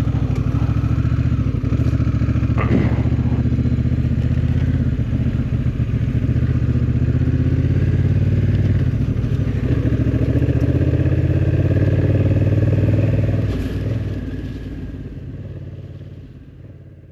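Motorcycle engine running steadily while riding along, heard from the rider's seat, then fading out over the last few seconds.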